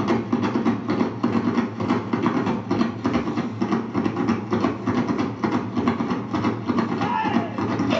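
Tahitian drum ensemble of wooden tō'ere slit drums and skin drums playing a fast, dense rhythm, many sharp wooden strikes a second with no let-up.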